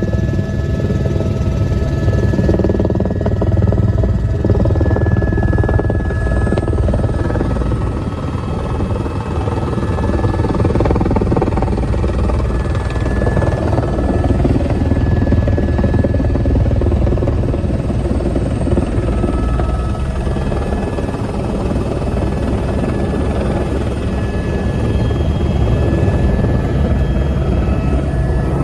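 Helicopter heard from inside the cabin, its rotor and engine running steadily during low flight and the approach to land, with background music mixed in.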